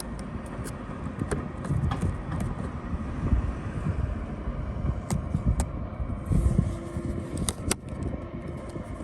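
A steady low rumble with light clicks and taps scattered through it, the loudest a pair of sharp clicks near the end: plastic trim being handled and positioned on a car dashboard.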